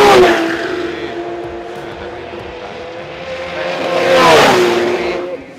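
Nissan GT-R R35 drag car running at full throttle down the strip with a steady, high engine note. About four seconds in it grows louder and its pitch drops as it passes by, then it fades.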